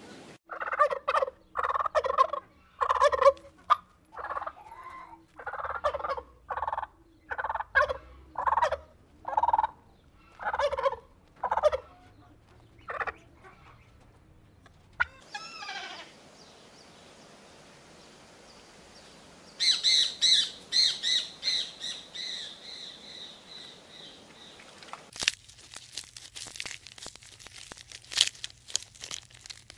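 A flock of domestic turkeys and geese calling, with gobbles and honks repeating for about twelve seconds, one falling call, then a run of high, rapid calls. Near the end it gives way to dense crackling and rustling as giraffes pull hay from a feeder.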